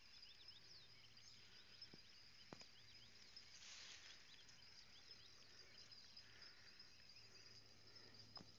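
Near silence: faint outdoor ambience of a steady high-pitched insect trill, with scattered short chirps and a brief rush of noise about four seconds in.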